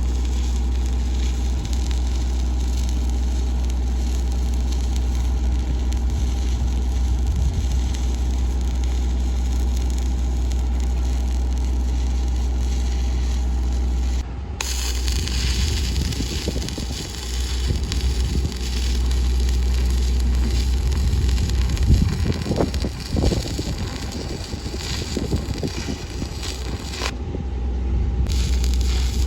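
Stick welding: the arc crackles and sputters irregularly over a steady low engine hum, brighter after a cut about halfway through.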